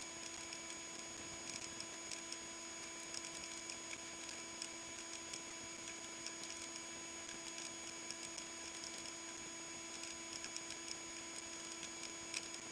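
Faint steady electrical hum made of several fixed tones, with light, quick clicks of front-panel keys being pressed on a Keithley 230 programmable voltage source, sped up.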